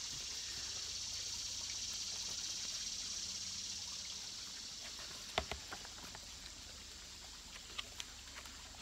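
Steady high hiss of outdoor garden background noise. About halfway through come a few sharp clicks and taps of a picture book being handled, with a couple more near the end.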